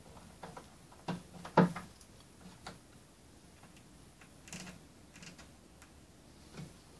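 Hands fitting wires into a small plastic terminal block on a wooden baseboard: scattered small clicks and taps, with the loudest knock about one and a half seconds in.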